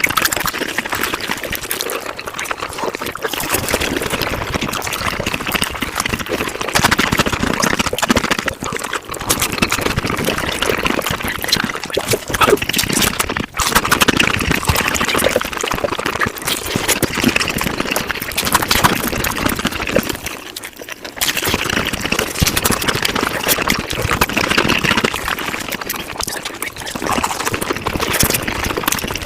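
Mukbang eating sounds sped up about five times: chewing and mouth noises run together into a dense, continuous crackle of quick clicks, with brief dips about halfway through and again about two-thirds of the way in.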